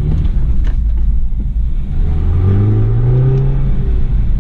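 BMW 320i's B48 2.0-litre turbocharged four-cylinder engine pulling under acceleration while driving, its pitch rising for a second or so about two seconds in, then easing off.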